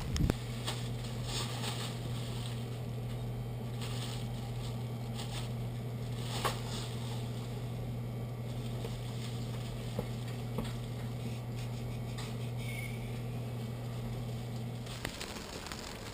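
A steady low machine hum with scattered faint clicks and rustles; the hum cuts off about fifteen seconds in.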